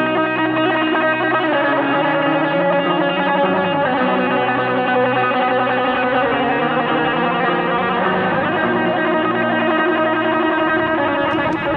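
Electric guitar through effects, playing a dense, steady wash of sustained, layered notes.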